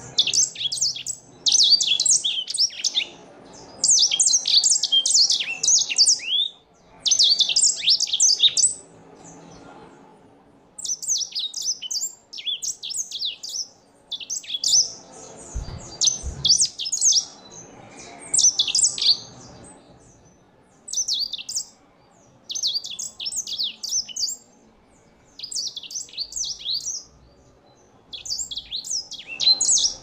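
Grey singing finch singing: fast, high twittering phrases of chirps and slurred notes, delivered in bursts of one to two seconds with short pauses between them.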